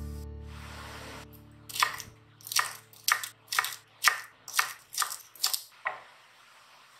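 A kitchen knife chopping a bunch of string beans on a wooden cutting board: about nine crisp cuts at roughly two a second, each knocking on the board. A tail of background music fades out before the cutting starts.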